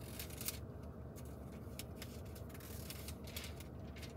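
Faint rustling and soft clicks of thin Bible pages being turned and handled, a scatter of short crisp sounds over a steady low hum.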